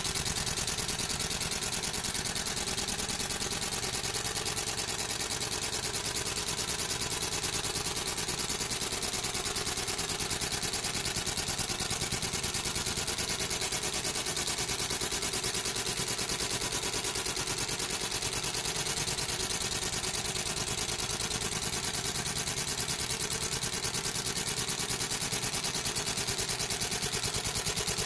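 30-watt fiber laser engraving ceramic tile: a steady buzzing hiss, dense with rapid crackle, as the pulsed beam ablates the tile surface.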